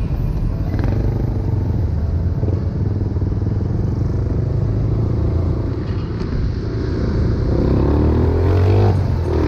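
Motor scooter engine running while riding slowly through traffic. Its pitch rises for a second or so near the end as it speeds up.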